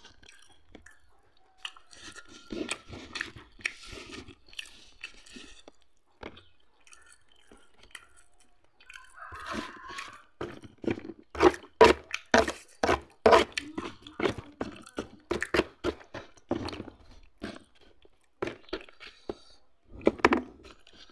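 Close-miked chewing and crunching of food, with a quick run of crunchy bites in the middle that is the loudest part.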